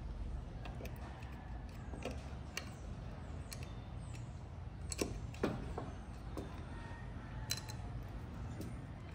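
Light metallic clicks and taps from a screwdriver working the center screw into the recoil starter of a 1950s Sears and Roebuck chainsaw, with two louder knocks about five seconds in and another a couple of seconds later, over a steady low rumble.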